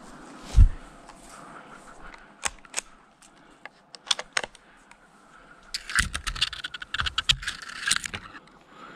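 Footsteps pushing through thick, dry spruce brush: dead twigs and branches snapping and crackling in scattered clicks, with a dense run of snapping about six to eight seconds in. A heavy low thump, the loudest sound, comes under a second in.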